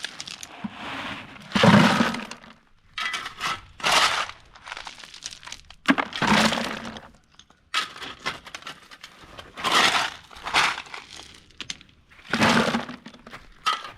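Stones and gravel crunching and clattering in a series of loud bursts, one every second or two, during manual building work with ballast and stones.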